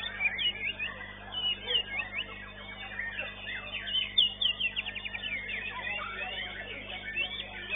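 White-rumped shama (murai batu) singing: a quick, varied string of whistled notes sliding up and down, with a fast trill of repeated notes about four seconds in.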